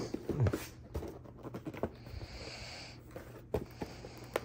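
A cardboard action-figure box being handled and worked open by hand: scattered light taps and scrapes, with a soft hiss lasting about a second, around two seconds in.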